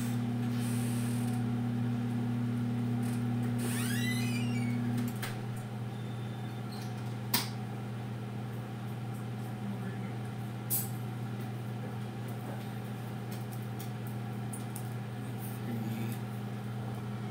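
Over-the-range microwave oven running with a steady low hum; one tone of the hum drops out about five seconds in. Two sharp clicks and a brief high falling squeak sound over it.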